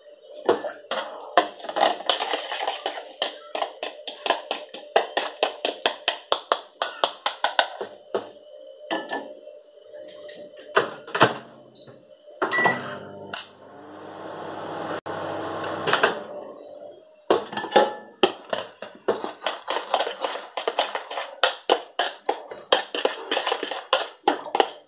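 A fork beating and stirring eggs in a bowl: rapid clinking taps, several a second, with a pause of about five seconds midway. During the pause a microwave oven gives a short beep and runs with a steady hum.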